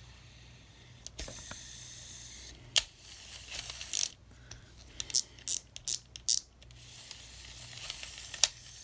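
Shimano Curado 200 E7 baitcasting reel worked by hand after a spool bearing replacement: a steady whir of the spool spinning on its new bearings, then a run of sharp mechanical clicks and short rattles, then the spool whirring again and stopping with a click near the end.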